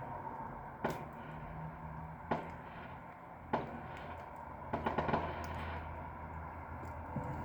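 Fireworks going off: three single sharp bangs about a second apart, then a quick cluster of several bangs a little past the middle, over a steady low hum.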